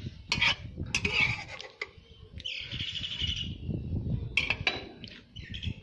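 A bird chirping, with scattered sharp clicks and knocks and a low rumble underneath.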